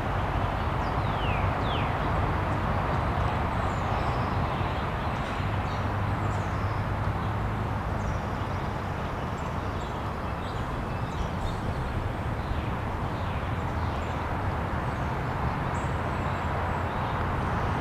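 Outdoor background: a steady rushing noise with a low rumble underneath, and small birds chirping faintly throughout, with two quick falling chirps about a second in.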